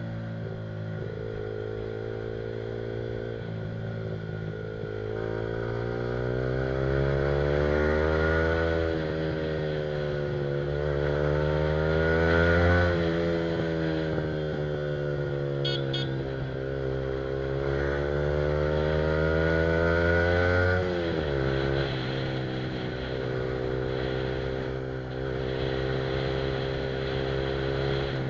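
Yamaha R15's single-cylinder engine through an aftermarket Akrapovic exhaust, on the move. The exhaust note climbs and eases off in pitch several times as the throttle is worked, drops sharply about three-quarters of the way through, then runs steadily.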